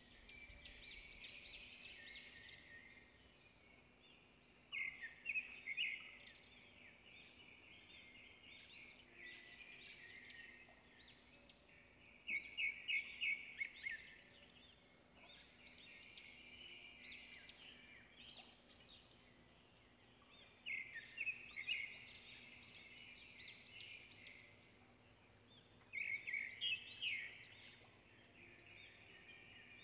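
A songbird singing: short bright phrases of quick chirps and trills, loudest in a few bursts several seconds apart, over a faint steady low hum.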